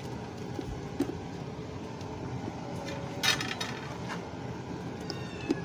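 A kitchen utensil knocks and scrapes against a cooking pot while biryani ingredients are layered in: a few light clicks and one louder clatter about three seconds in, over a steady background hum.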